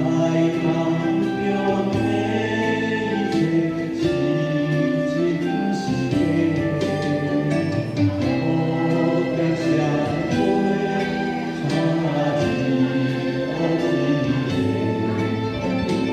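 Music: a choir singing held, sustained notes over instrumental accompaniment.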